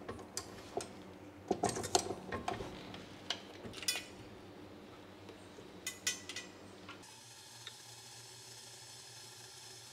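Metal clicks and clinks of a dough hook being fitted onto a stand mixer, a scatter of sharp knocks over the first seven seconds, then only a low steady background.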